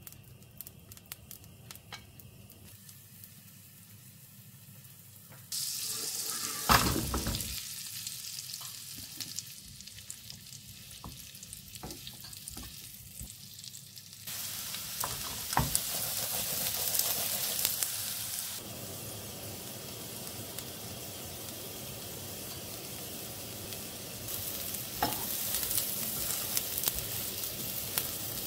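Food sizzling in hot oil in a frying pan. The sizzle starts suddenly about five seconds in and comes in louder and quieter stretches, with one sharp knock of a utensil or pan shortly after it starts.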